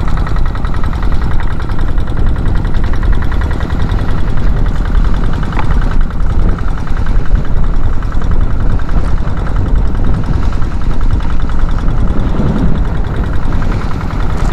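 Kubota single-cylinder diesel engine of a small outrigger boat running steadily under way, a fast, even chugging.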